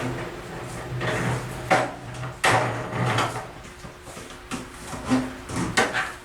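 Irregular knocks, clunks and scrapes of objects and tools being handled against wood during shop work.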